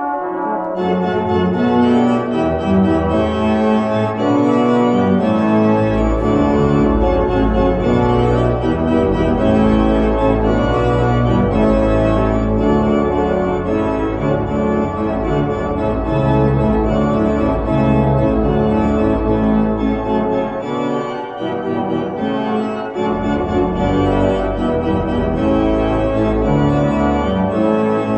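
Organ music playing sustained chords, with a deep bass line that comes in about six seconds in and drops out briefly past the two-thirds mark.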